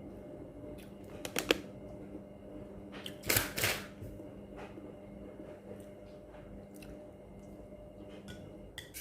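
Light handling sounds of food containers on a table: a couple of sharp clicks about a second and a half in and a short scraping rustle around three and a half seconds, over a steady low electrical hum.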